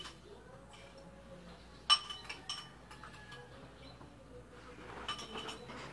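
Metal fork clinking against a plate while eating noodles: one sharp, ringing clink about two seconds in, then a few lighter clinks near the end.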